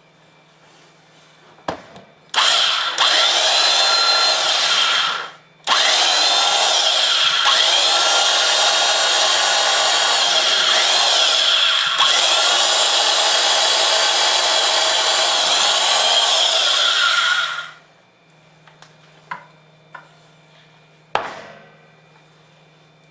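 Vintage Milwaukee Special Slow Speed electric drill boring into wood: a run of about three seconds, a short pause, then a long run of about twelve seconds, followed by a few light knocks.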